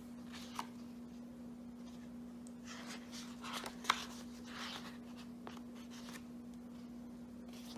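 Paper rustling as spiral planner pages are lifted and leafed through, with a sharp click about four seconds in, over a steady low hum.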